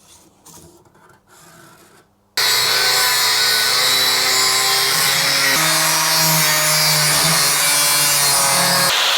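Quiet handling sounds, then about two and a half seconds in a power tool starts abruptly and runs loud and steady, cutting sheet steel. Its pitch shifts a couple of times as the load changes.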